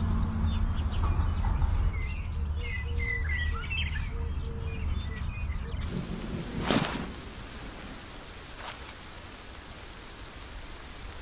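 Small birds chirping over a low wind rumble. About seven seconds in comes a single sharp sound, and then a quieter steady hiss.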